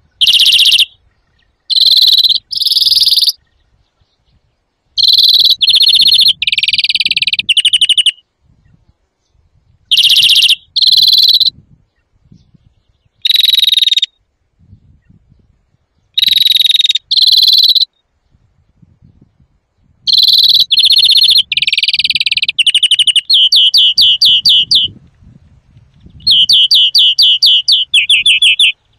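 European greenfinch singing loudly: phrases of twittering chirps, trills and buzzy notes a second or two long with short pauses between, running into rapid trills of repeated notes near the end.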